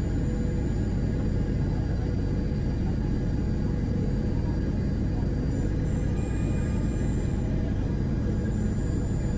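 Steady low rumble of airliner cabin noise in flight, jet engines and rushing air heard from inside the cabin, with a few faint steady high tones over it.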